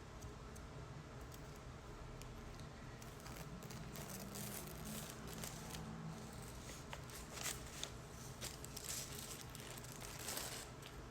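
Packaging being handled: crinkling and tearing of paper or plastic wrap with scattered small clicks, busier in the second half.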